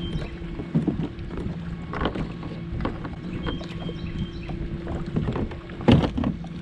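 Knocks and clatter of gear and a fish being handled in a fishing kayak, with one louder thump near the end. Under it run a steady low hum and wind on the microphone.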